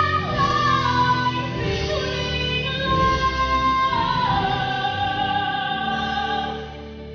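A woman singing long held notes in a musical theatre song, stepping down in pitch over instrumental accompaniment, fading away near the end.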